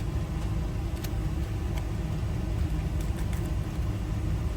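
Steady low rumble, like an idling engine or machinery running, with a few faint light clicks of handling about one, two and three seconds in.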